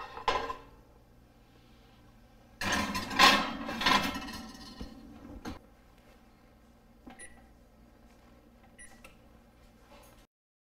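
Pizza stone clattering onto a metal oven rack, a longer clatter as the rack goes in and the oven door shuts with a click, then two short beeps from an LG range's touch control panel as the broiler is set to high.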